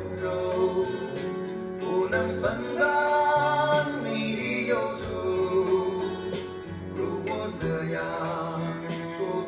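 A song with a singing voice over instruments, played back through AER full-range drivers on open baffles driven by an Elekit TU8600S 300B tube amplifier and picked up in the room by a microphone.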